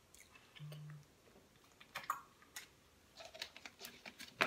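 Quiet drinking from a thin plastic water bottle, then a run of small clicks and crackles as the bottle and its screw cap are handled, thickening toward the end with one sharper click just before it.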